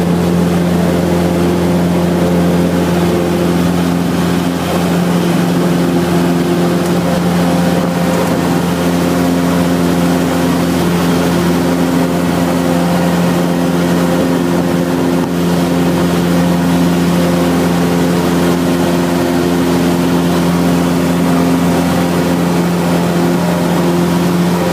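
Cessna 172's piston engine and propeller at full takeoff power, a loud steady drone heard from inside the cockpit through the takeoff roll, lift-off and climb.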